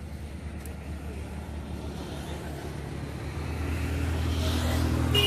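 A motor vehicle's engine running steadily, growing louder over the last two seconds as it comes closer.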